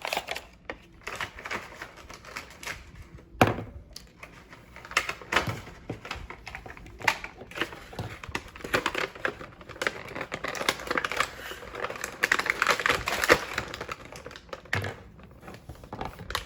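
Small plastic toy pieces and packaging being handled: a rapid run of small clicks and rattles, with one sharper knock about three and a half seconds in.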